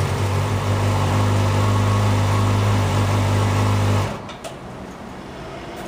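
Yamaha R6 inline-four engine idling steadily, then switched off about four seconds in.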